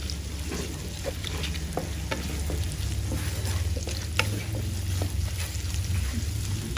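Sliced shallots, garlic and lemongrass sizzling in oil in a wok while a wooden spatula stirs them, with scattered scrapes and taps of the spatula on the pan. The aromatics are being sautéed until fragrant. A steady low hum runs underneath.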